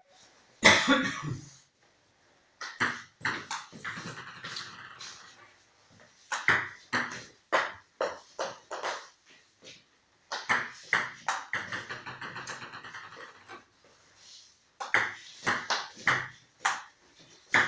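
Table tennis balls dropped onto a table tennis table, four times, to check how high they bounce. Each drop is a run of sharp pings that come faster and faster as the ball settles. A short, louder handling noise comes right at the start.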